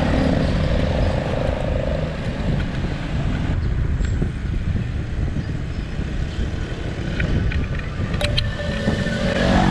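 Road traffic and a steady rumble of wind on the microphone. A motorcycle passes close by in the first two seconds.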